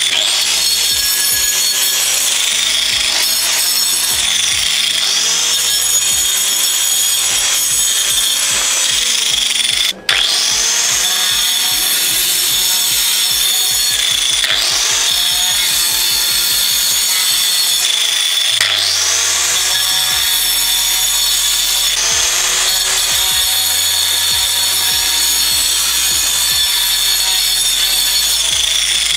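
Angle grinder with a cutting disc running at speed and cutting into a block of ice, a steady high whine with grinding, its pitch dipping and recovering several times as the disc bites. The sound breaks off for a moment about ten seconds in.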